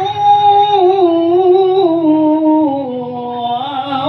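A high male voice in melodic Qur'an recitation (qira'ah), holding one long ornamented note on the end of a word. The pitch wavers and steps slowly downward, then climbs again near the end.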